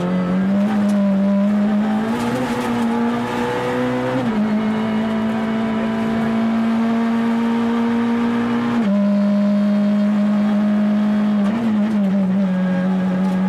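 Ford Fiesta R2 rally car's naturally aspirated 1.6-litre four-cylinder engine running hard at high revs under full throttle, heard from inside the cabin. The pitch climbs slowly and drops sharply about four seconds in and again about nine seconds in as the revs fall, over steady tyre and road noise.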